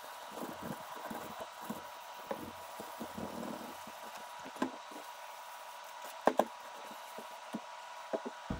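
Rag rubbing Danish oil onto a turned cherry plate, with soft scuffs and small ticks as the wooden plate shifts on a plywood board. Two sharp knocks about six seconds in, then smaller knocks and a low thump near the end as the plate is handled and turned over.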